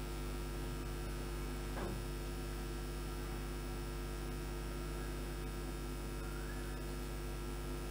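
Steady electrical mains hum with its overtones under a faint hiss, picked up by the recording microphone, with one faint click about two seconds in.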